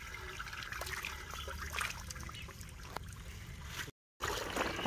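Water trickling and splashing as it is poured by hand into a diesel irrigation pump's pipe to prime it, with a low steady hum underneath. The sound cuts out briefly near the end, then water gushes and splashes from a lay-flat hose into standing water.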